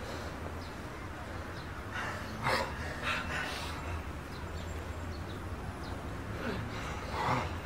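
Steady low street hum with a few short, breathy sounds like gasps or breaths, about two to three and a half seconds in and again near the end.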